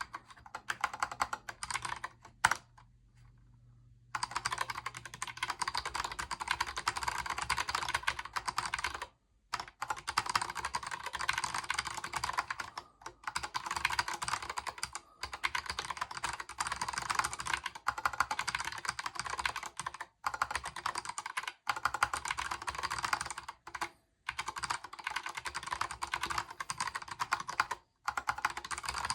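Fast touch-typing on a Kinesis Advantage 360 Pro split mechanical keyboard with Gateron Brown tactile switches: a rapid, continuous stream of key clacks. Typing stops for about a second and a half roughly three seconds in, then resumes and runs on with a few brief pauses.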